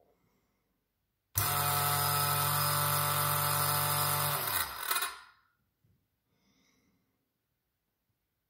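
SilverCrest stick blender's electric motor switched on about a second and a half in, running unloaded in the air with a steady pitched whine for about three seconds, then released and spinning down with falling pitch.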